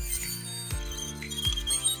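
Background music: sustained chords with low bass hits that fall in pitch twice and high ringing tones.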